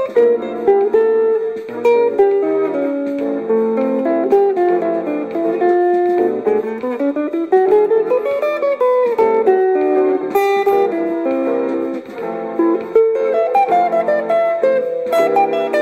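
Ibanez electric guitar with humbucker pickups playing an improvised jazz solo of quick single-note lines, with chords sounding beneath.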